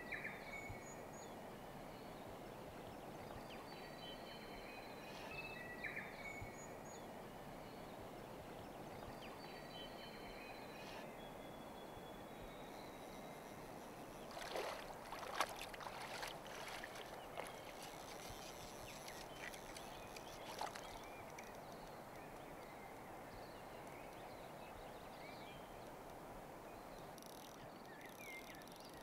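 Faint, steady rush of river water, with a few short bird chirps in roughly the first ten seconds and a few brief knocks about halfway through.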